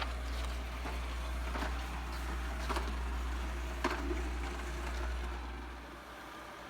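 ILife robot vacuum cleaner running: a steady low hum with scattered clicks and knocks, the hum dropping away near the end.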